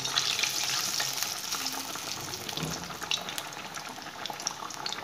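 Masala-and-besan-coated pieces of rohu fish sizzling in hot oil in a kadai. The frying starts suddenly as a piece is slid in, then carries on as a dense, steady crackle with many small pops.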